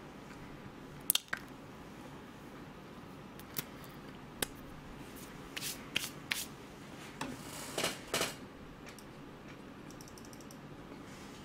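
Close-miked chewing of a soft fresh-cream croissant: scattered wet mouth clicks and smacks, with a cluster of short rustling noises about six to eight seconds in.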